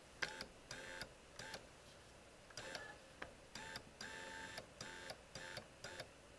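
Electric linear actuator motor of a La-Z-Boy power recliner run in short jogs: about ten brief, faint spells of steady hum of varying length, each starting and stopping with a click, as the actuator is extended a little at a time.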